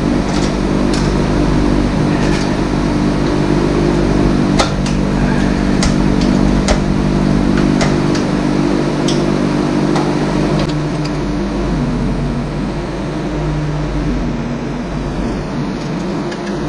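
A steady machine hum in a workshop, its tone shifting a little about two-thirds of the way through, under scattered sharp metallic clicks and taps from hand tools working on a small flathead Briggs & Stratton engine.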